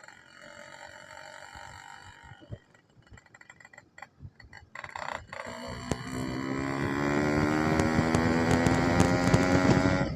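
Yamaha RX-King two-stroke single-cylinder motorcycle engine and exhaust: running quietly at first, then from about halfway the revs climb steadily, rising in pitch and getting much louder, before dropping off abruptly at the end.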